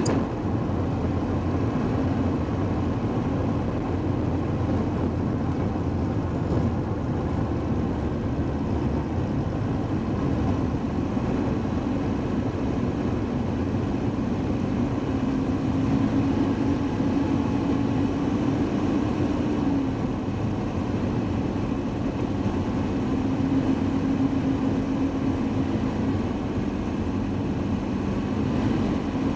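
Mercedes-Benz W124-series car driving, with steady engine and road noise. The engine note grows a little for a few seconds near the middle and again later on.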